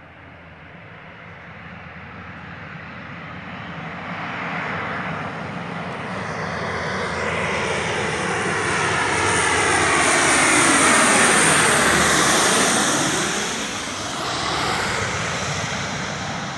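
Lockheed C-130H Hercules on final approach, its four Allison T56 turboprop engines droning. The sound grows steadily louder to a peak about eleven seconds in as the aircraft comes closest, its tone sweeping down and back up, then eases off with a brief swell before the end.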